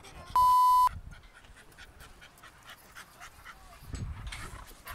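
A short steady electronic beep, about half a second long, comes just after the start and is the loudest sound. Around it, a French bulldog is panting faintly.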